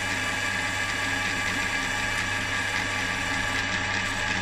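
Metal lathe running steadily with a strip of sandpaper held against the spinning mouthpiece stem: an even motor hum under a steady hiss.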